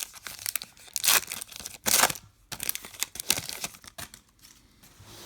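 Foil wrapper of a trading card pack being torn open and crinkled by hand, with irregular crackling rustles and two louder tearing bursts about one and two seconds in.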